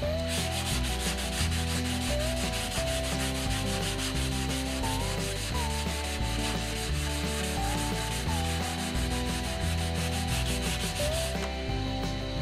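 Sandpaper rubbed by hand in quick back-and-forth strokes over the painted wing of a control-line model airplane, stopping shortly before the end. Background music with a stepping bass line plays throughout.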